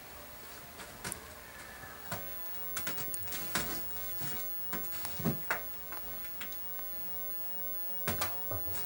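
A cat rummaging among things on a bookcase shelf: scattered rustles, light taps and knocks that come in short clusters.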